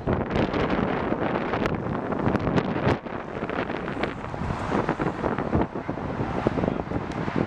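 Strong wind buffeting the camera microphone: a heavy low rumble broken by many short, sharp pops from the gusts.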